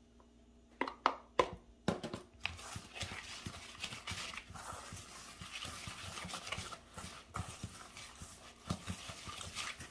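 Spatula scraping melted butter from a plastic tub and stirring it into flour, brown sugar and chopped pecans in a stainless steel bowl. There are a few knocks and taps about a second in, then steady wet scraping and stirring against the metal bowl.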